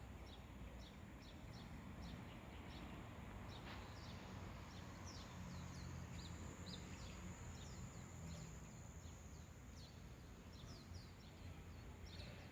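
Birds chirping faintly: many short, high, quickly falling chirps, over a steady low rumble of background noise and a thin, steady high whine.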